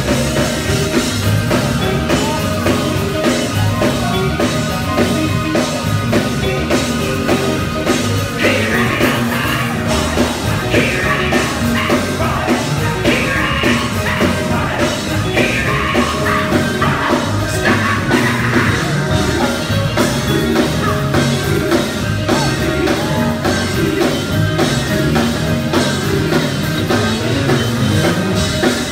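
Live gospel band playing an upbeat, driving groove on drum kit and electric guitar, with a women's vocal group singing over it; louder, brighter vocal passages come in from about a third of the way through to about two-thirds.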